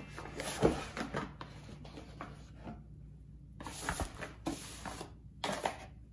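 Paperboard box being opened and handled: rustling of the cardboard lid and flaps with a few sharp taps, the loudest about half a second in.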